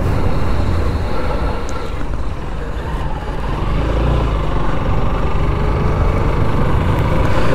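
Motorcycle ride heard from the rider's mic: a steady rush of wind and road noise over a low rumble, with a faint engine note that rises slightly about halfway through.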